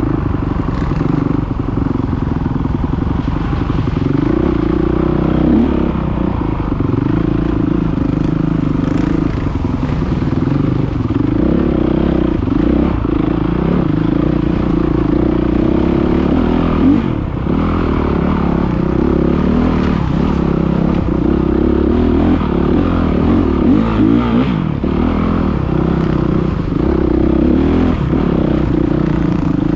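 Enduro dirt bike engine heard from on board while riding, its revs rising and falling with the throttle.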